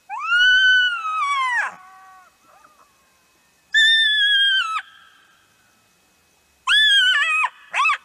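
Jackal calling: three long high cries, the first rising and then sliding down, the second held level before dropping at its end, the third wavering, with a short cry at the very end.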